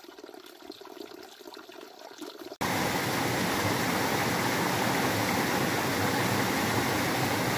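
Faint, quiet background, then about two and a half seconds in an abrupt cut to the loud, steady rush of a creek's running water.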